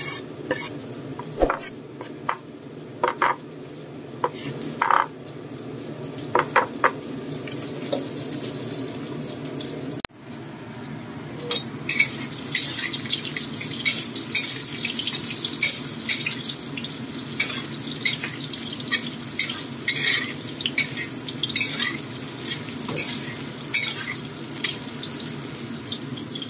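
Eggplant pieces frying in oil in a wok, sizzling and crackling, with a metal spatula knocking and scraping against the pan. The sizzle becomes dense and continuous about ten seconds in.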